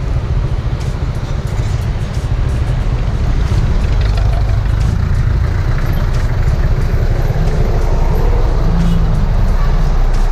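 Suzuki Raider motorcycle on the move, its engine running under a heavy rumble of wind on the helmet-mounted camera's microphone; the noise gets a little louder a few seconds in.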